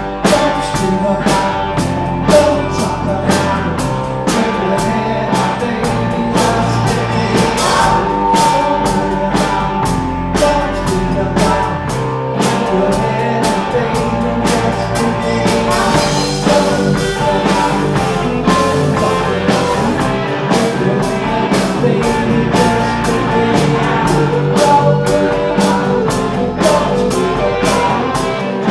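Rock band music with a drum kit keeping a steady beat under guitar.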